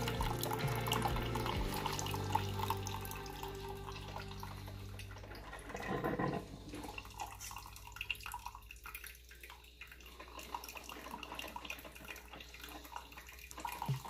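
Brewed coffee running in a thin stream from a Breville Grind Control drip coffee maker into a glass carafe, over a steady low hum. After about six seconds it drops to quieter scattered drips and ticks.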